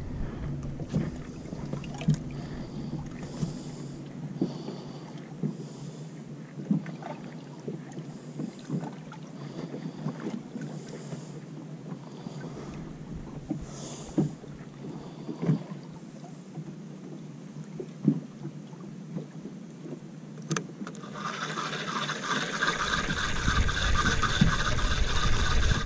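Soft water and wind noise with scattered light clicks of hands on the rod. About three-quarters of the way in, a Penn Spinfisher spinning reel starts being cranked, its gears giving a steady whirr as the jig is wound up.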